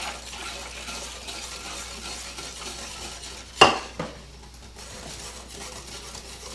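Wire whisk stirring instant vanilla pudding mix and milk in a glass bowl, a steady scraping and sloshing. A little past halfway comes one sharp clack with a smaller knock just after, as the measuring cup is set down on the counter, and the whisking briefly eases before it resumes.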